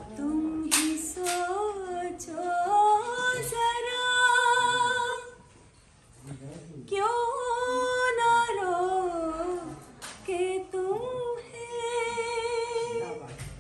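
A woman singing unaccompanied in a slow, ornamented style, holding long notes with vibrato and sliding between pitches in three phrases, with a short pause about halfway through.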